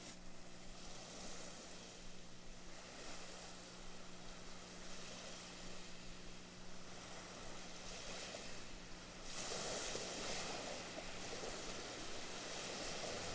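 Ambient opening of a progressive trance track: a synthesized wind-like noise wash over a steady low drone. About nine seconds in the drone drops out and the noise swells brighter and louder.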